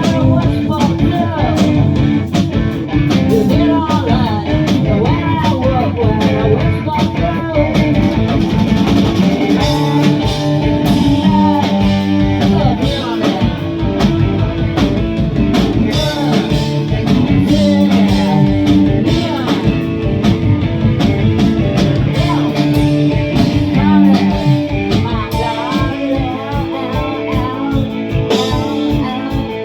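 Live rock band playing a song, with guitar over bass and a steady drum beat.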